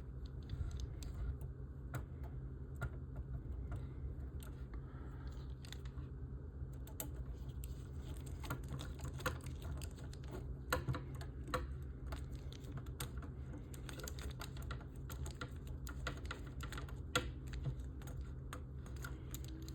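Scattered small clicks and taps of a screwdriver working tiny screws into the plastic and metal parts of a model kit frame, a screw that is not catching in its hole, over a steady low hum.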